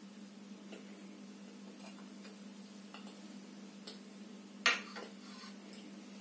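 A steady low hum with a few faint ticks, then a single sharp clack with a brief ring about two-thirds of the way through as something hard is set down on the kitchen counter.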